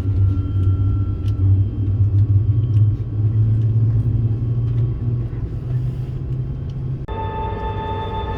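Deep, steady rumble inside the cabin of an Airbus A380 with Rolls-Royce Trent 900 engines as the aircraft moves under power. About seven seconds in it cuts off abruptly to background music of long held tones.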